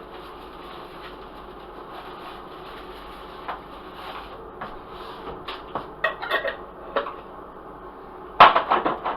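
Crab and shrimp boil seasoning being shaken from its container onto seafood: a string of light rattles and taps, with a louder clatter near the end, over steady background noise.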